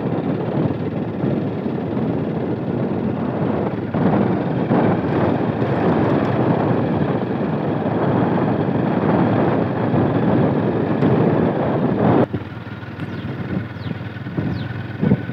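Mahindra motorcycle being ridden, its engine and the rushing wind heard from the rider's seat as a steady rumble, which turns noticeably quieter about twelve seconds in.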